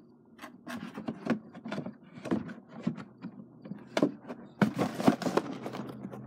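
Building-brick set and its packaging being handled and packed back into the box: scattered clicks and knocks with scraping and rubbing, and a short burst of rustling about five seconds in.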